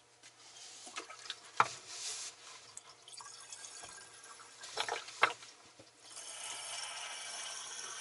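Distilled water trickling from an upside-down plastic bottle into a lead-acid battery cell, a steady filling hiss that starts about six seconds in, after a few sharp knocks from handling the bottle. The battery is being topped up because its cells have run low on water.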